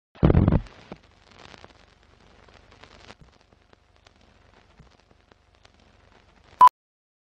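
Film-countdown-leader intro sound effects: a loud low thump right at the start, then faint crackle and scattered ticks like an old film projector, and one short sharp beep near the end.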